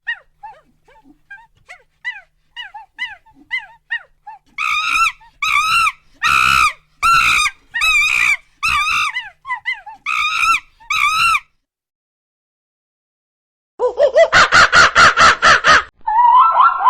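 Animal calls: faint short chirps, then a run of about ten loud high yelping calls, each rising and falling in pitch. After a pause of about two seconds comes a fast rattling, pulsed call, and another call starts near the end.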